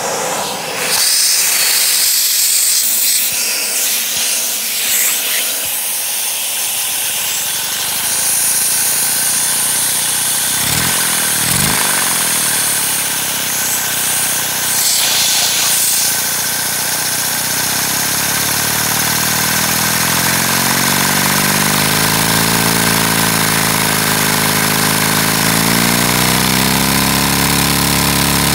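LEGO vacuum engine running flat out at about 75% throttle, a loud rush of air over rapid mechanical clatter. Its pitch climbs about ten seconds in as it speeds up, then wavers up and down as the throttle lever is worked.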